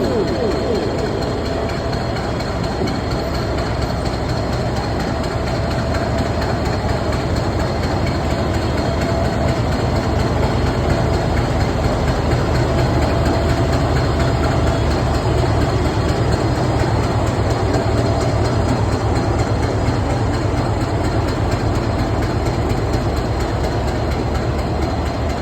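Diesel locomotive train running steadily: a continuous low rumble with fast, even rail clatter that holds at much the same level throughout.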